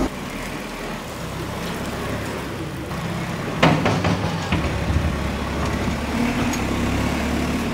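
Telehandler's diesel engine running as the loader bucket pushes wet slurry-like cattle muck along a shed floor, with a short clatter about three and a half seconds in.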